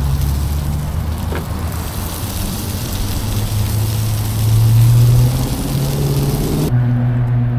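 Food sizzling and frying on a two-burner camp griddle, a dense hiss that cuts off sharply near the end. A low vehicle engine hum runs underneath and swells for a moment around the middle.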